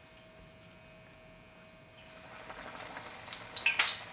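Onion slices frying in hot cooking oil in a cast iron pot. It is quiet at first, then a sizzle with crackles builds from about halfway, with a few sharp pops near the end.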